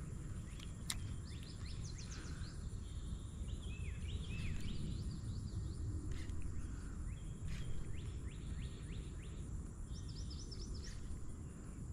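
Outdoor pond-side ambience: small birds chirping in several short runs of quick high notes, over a steady low rumble and a thin steady high insect tone.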